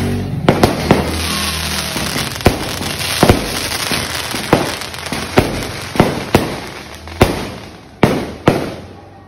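Aerial fireworks bursting in a quick, irregular series of sharp bangs, about one to two a second, with a hissing wash of noise between them during the first few seconds. The bangs grow quieter and sparser toward the end.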